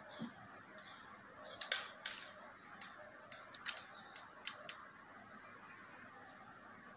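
Metal spoon clicking and scraping against a plastic bowl as coleslaw is scooped out and spread onto bread slices: a string of light, sharp clicks, about ten in the first five seconds.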